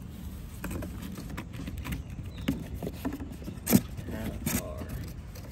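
Cardboard shipping box being opened and handled, its flaps rustling and knocking in scattered short knocks, the loudest a sharp knock a little under four seconds in, over a steady low rumble.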